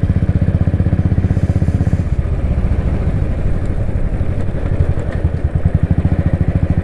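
Motorcycle engine running at a steady cruise, its exhaust pulsing in a quick, even beat.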